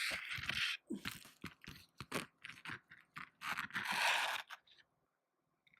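Packaging handled and opened by hand: a run of short, irregular scratchy rustles, with longer ones about half a second and four seconds in, stopping about five seconds in.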